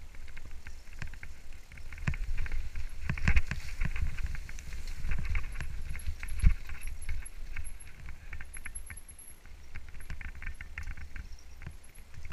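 Mountain bike descending rough, rocky singletrack: the bike and its tyres rattle and clatter over the rocks, with a few harder knocks, over a steady low rumble of wind on the microphone.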